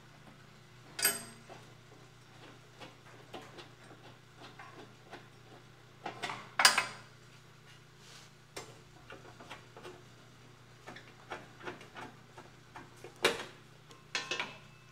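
Metal clicks and clanks as a wrench loosens the bolts of a 14-inch bandsaw's metal wheel guard and the guard is lifted off. Scattered light ticks, with louder knocks about a second in, around six and a half seconds in, and near thirteen seconds.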